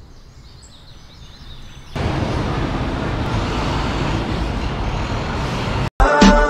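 Steady street traffic noise that cuts in abruptly about two seconds in and runs for about four seconds, after a faint fading sound. It breaks off suddenly just before the end, and loud Latin dance music with a strong beat starts.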